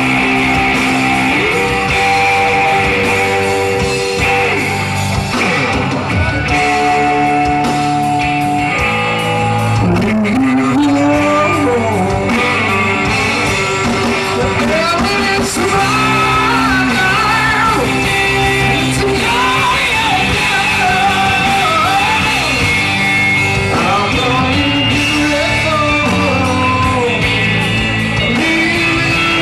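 Live rock band playing electric guitars, sustained chords changing every second or two, with a male lead singer's voice coming in about ten seconds in and singing over them.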